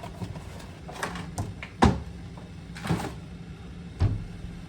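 A few sharp knocks and clunks of things being handled in a kitchen, the loudest about two seconds in, with a dull thud near the end.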